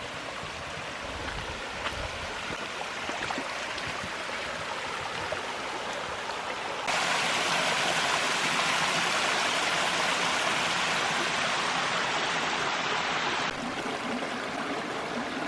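Rushing water of waterfalls and a stream, a steady hiss that jumps abruptly louder and brighter about seven seconds in and drops back abruptly a few seconds before the end.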